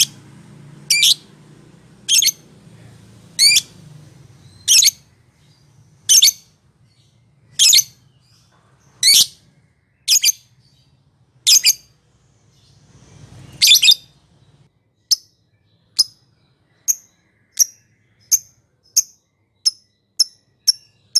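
Lovebird calling: loud, shrill chirps repeated about every second and a half. About fifteen seconds in they change to a run of short, sharp chirps that come faster and faster.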